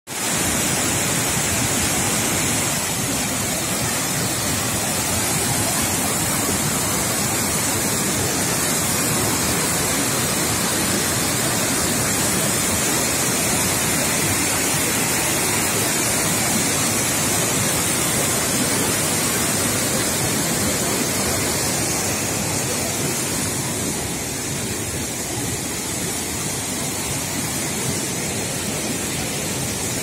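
Mountain waterfall cascading over boulders: a steady, loud rush of water, a little quieter near the end.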